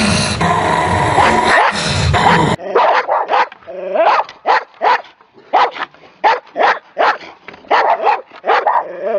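A dog growling and snarling in one continuous rasp; then, after a sudden cut about two and a half seconds in, a dog barking in a rapid string of short, sharp barks, two or three a second.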